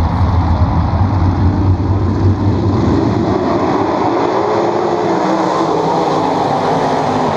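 A pack of 410 V8 sprint car engines running together on a dirt oval with a deep rumble, the engine note rising in pitch as the pack approaches and passing by after about five seconds.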